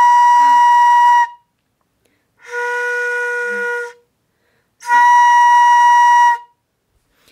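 Danso (Korean vertical bamboo flute) playing three long, steady notes: the high im, then the low im an octave below and noticeably softer, then the high im again. The high note is blown strongly, the low one gently.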